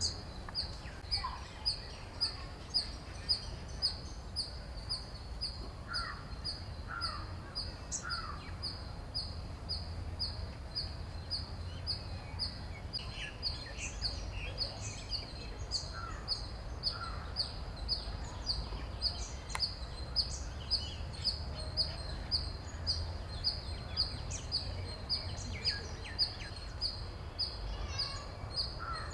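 Natural outdoor ambience. A high-pitched chirp repeats evenly about three times a second throughout, with scattered short bird calls and chirps and a low rumble underneath.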